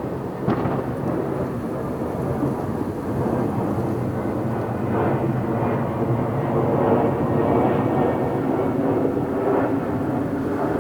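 Many fireworks going off at a distance, their bangs blending into a continuous rumble, with one sharper bang about half a second in.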